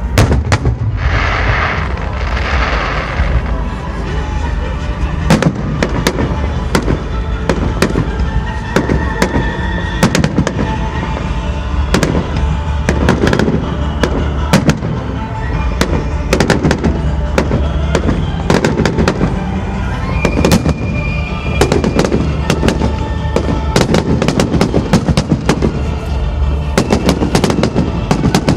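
Fireworks display: a hissing rush at the start, then a dense, continuous barrage of bangs and crackling shell bursts, with music playing underneath.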